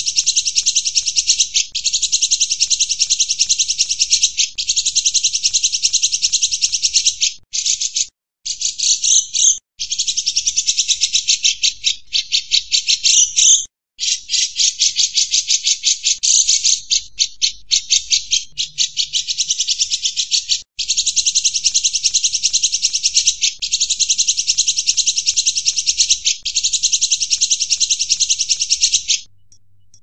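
Cucak jenggot bulbul singing continuously (gacor): a rapid, rattling chatter of high notes in phrases about a second and a half long, broken by brief pauses.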